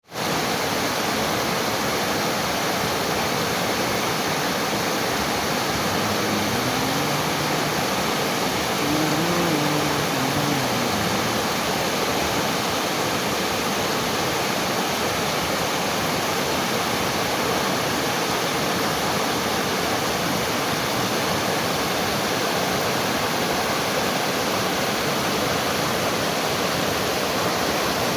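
Steady rushing water, like a waterfall or fast stream, an even roar with no breaks. Partway through, a faint low hum rises and then falls in pitch over about five seconds.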